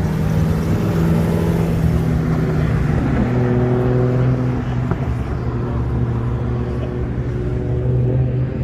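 VE Commodore drift car's engine running steadily, its pitch stepping down a little about three seconds in.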